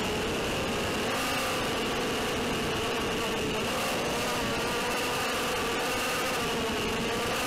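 ZMR180 racing quadcopter's brushless motors and propellers buzzing in flight, heard from its onboard camera, the pitch rising and falling as the throttle changes.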